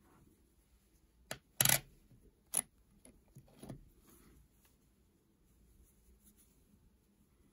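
A few sharp clicks and light knocks of a coin being handled and set down on a hard surface, the loudest a quick double knock about a second and a half in.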